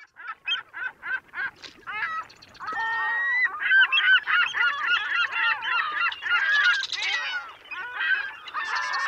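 Gulls calling: first a run of short rising cries, about four a second, then many birds calling over one another.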